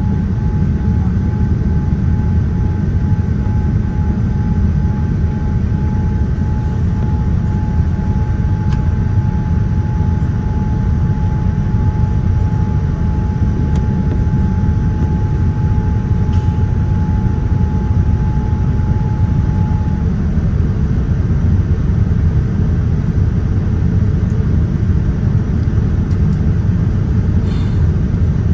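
Boeing 787-9 passenger cabin during the climb after takeoff: a loud, steady roar of the engines and airflow, heaviest in the low end. A thin steady whine runs over it and stops about two-thirds of the way through.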